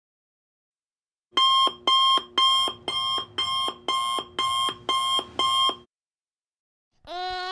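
Electronic alarm clock beeping: about nine beeps, two a second, that stop suddenly after some four and a half seconds. Near the end a wailing cry starts.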